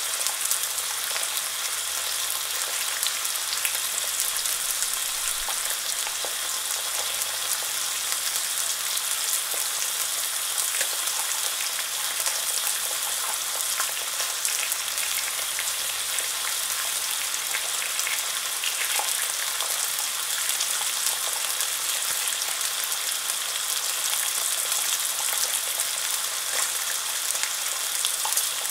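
Unsmoked back bacon rashers frying in a carbon steel pan: a steady sizzle with fine crackles and spits throughout.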